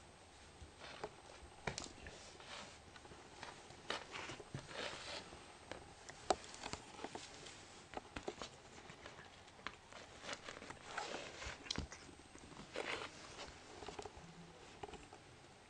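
Cat biting, clawing and wrestling a hard plastic toy mouse on a laminate floor: faint, irregular clicks, scrapes and rustles.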